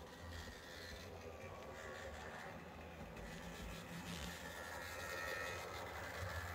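HO-scale Athearn Genesis CSX MP15AC model diesel locomotive running on the layout track: a steady motor whir with the wheels rolling on the rails. It gets louder through the second half as the locomotive comes closer, and the owner hears it as sounding better than at first.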